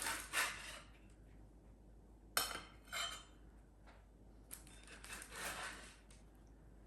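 Kitchen utensils and dishware clinking and scraping in several short bursts of clatter.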